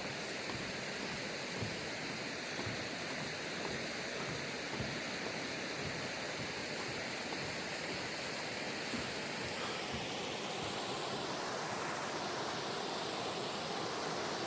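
Steady rushing of a mountain-valley stream, with a few faint ticks.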